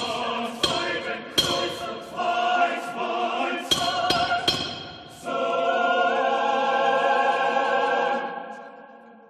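Mixed chamber choir singing, cut through by several sharp mallet strikes with a short ring in the first five seconds. From about five seconds in the choir holds a sustained chord that fades away near the end.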